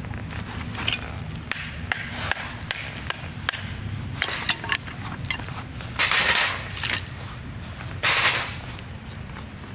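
Thin wooden kindling sticks being handled and laid across a folding metal fire grill: light wooden clicks and knocks of wood on wood and on the metal frame. There are two longer, louder scrapes, about six and eight seconds in.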